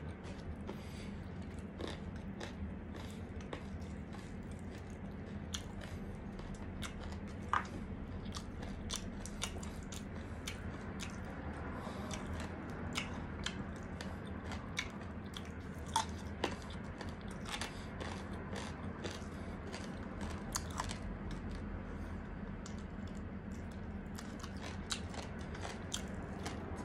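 A person chewing and biting crispy breaded fried chicken with rice, with many short crunches and wet chewing clicks scattered throughout over a steady low hum.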